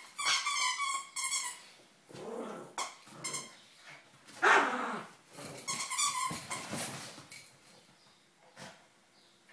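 Small dogs, a Yorkshire terrier among them, barking and growling as they play-fight. Quick repeated yaps come at first, the loudest bark about halfway, and more yapping that dies down near the end.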